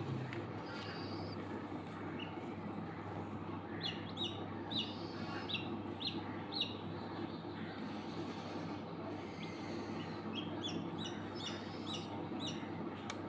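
Hatching chicken chicks peeping: a run of about seven short, high chirps around the middle and another run near the end. Under them runs a steady low hum from the incubator.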